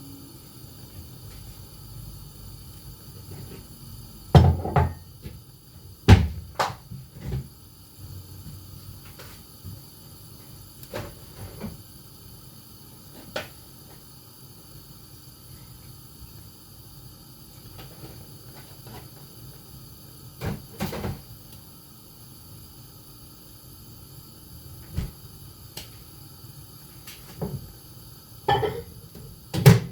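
Scattered kitchen knocks and clunks, a few handling and setting-down sounds spread over the time, the loudest about four and six seconds in, over a low steady background hum.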